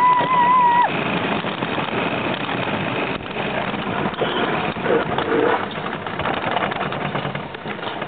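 Bobsled car running fast along its steel rail track: a steady rumble of wheels on the rails mixed with rushing wind noise. Near the start a single high, held tone lasts about a second.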